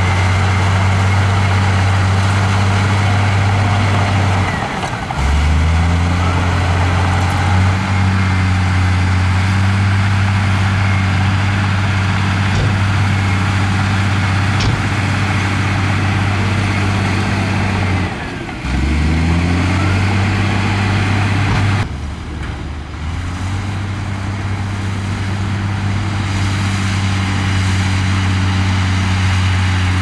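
Heavy diesel engine of earthmoving equipment running hard with a deep, steady drone. Its note sags and climbs back up three times: about five seconds in, near the middle, and again a few seconds later.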